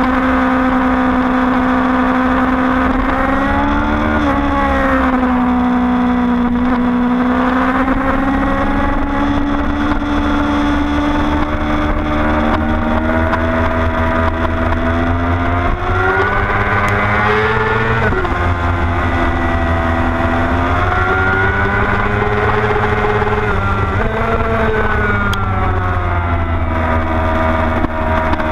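Sport motorcycle engine at track speed, heard from the bike itself over heavy wind rumble. The revs rise and fall as it goes through corners, climbing hard about two-thirds of the way in and then dropping suddenly, like a gear change.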